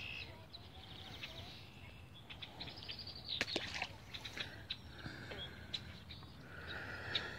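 Faint bird chirps with several sharp clicks and taps, two of them close together about three and a half seconds in.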